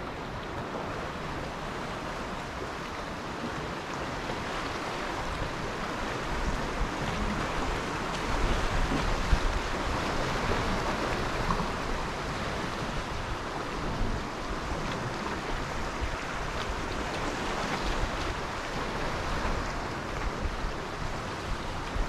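Sea surf: waves washing against the shore in a steady rush that swells to a peak around the middle and eases off again.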